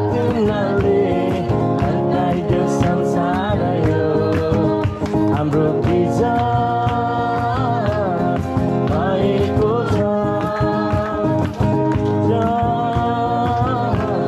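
A worship song sung with guitar accompaniment: voices holding and sliding between long notes over steady strummed backing.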